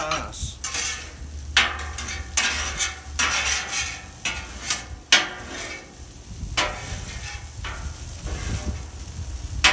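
Noodles sizzling in oil on a Camp Chef flat-top steel griddle while two metal spatulas toss them, scraping across the griddle surface again and again at an uneven pace. The tossing is quick and constant to keep the noodles from sticking.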